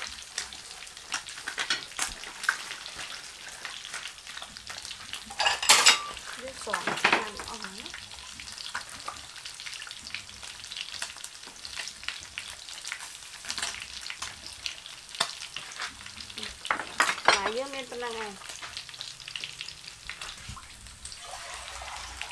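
Fish pieces frying in oil in a pan, a steady sizzle full of small crackles and pops, with a few louder clatters in between.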